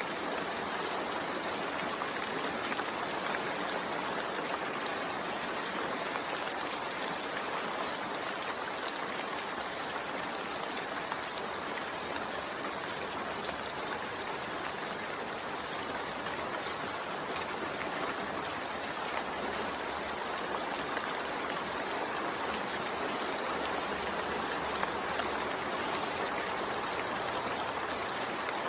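Steady rain, an even hiss of falling water that does not change.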